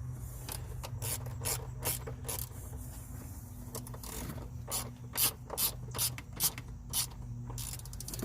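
Ratchet wrench clicking in quick back-and-forth strokes as a mounting bolt for a truck's clutch switch is run down, the clicks coming louder and sharper about five seconds in.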